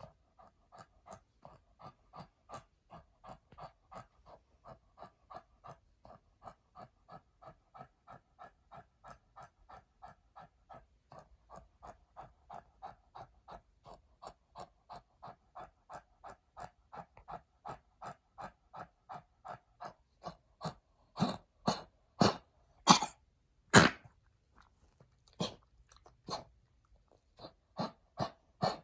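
Senior Pekingese breathing hard in fast, rhythmic noisy pulses, two or three a second, slowly getting louder. About three-quarters of the way in, this breaks into a series of loud, harsh coughs in short clusters. This is the cough of lungs damaged by heartworm disease.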